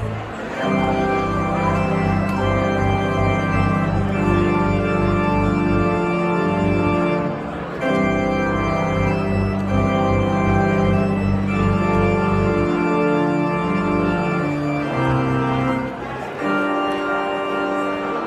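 Church organ playing a brisk piece in full sustained chords over a deep pedal bass, in phrases with short breaks about seven and a half and sixteen seconds in. The pedal bass drops out about thirteen seconds in.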